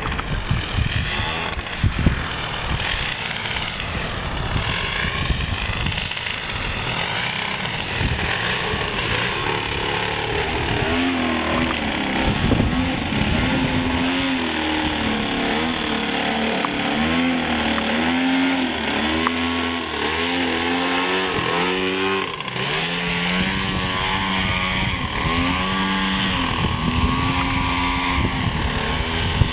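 30cc two-stroke gas engine of a radio-controlled aerobatic model plane with a beer-can muffler, running in flight. Its pitch rises and falls repeatedly as the plane passes and the throttle changes.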